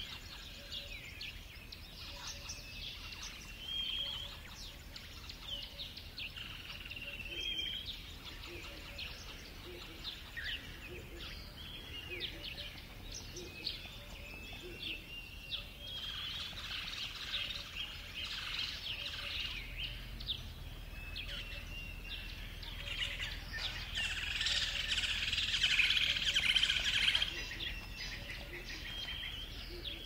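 Dawn chorus of bush birds: many birds chirping and calling over one another, with short steady whistled notes among them. The chorus grows denser and loudest a little before the end.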